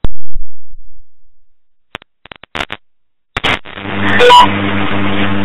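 A loud click at the very start, a few faint clicks around two seconds in, then a steady low hum with hiss from about three and a half seconds in.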